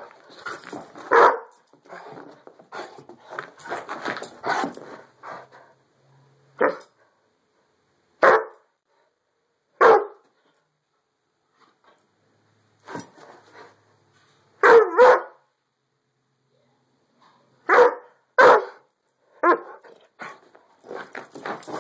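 Dog barking excitedly: a rapid run of barks at first, then single barks every second or two with pauses between, including a quick double bark about midway.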